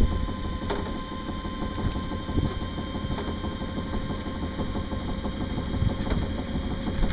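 Homemade electric boat drive, an electric motor turning a straight propeller shaft, running steadily under load with an even whine.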